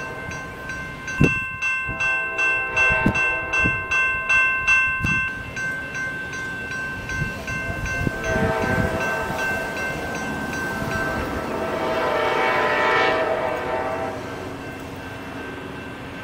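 Railroad crossing warning bells ringing at about two strikes a second while the crossing gates rise after the train has gone. The ringing fades out around the middle, and a broad rushing swell, likely a passing vehicle, rises and falls near the end.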